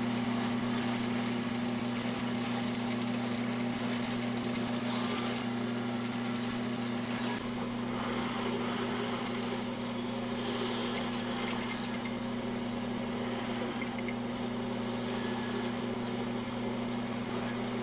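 Bandsaw running with a steady motor hum while its blade cuts a curved outline through a block of wood.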